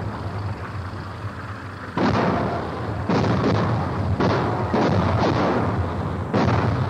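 Artillery fire with shell explosions: a blast dies away over the first two seconds, then six more cut in sharply, about a second apart or less, each fading out over a low steady hum.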